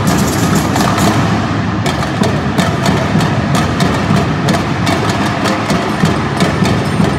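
Student samba-style percussion band (bateria) playing a steady, dense drum rhythm in a large gymnasium.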